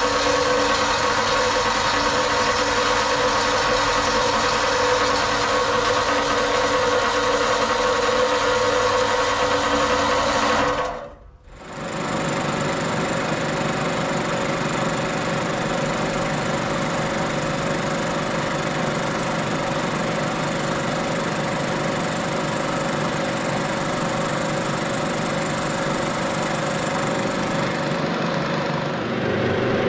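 A horizontal metal-cutting bandsaw runs steadily, cutting steel stock, for about the first eleven seconds. After a brief gap, a milling machine runs with an end mill cutting steel held in the vise, steady to the end.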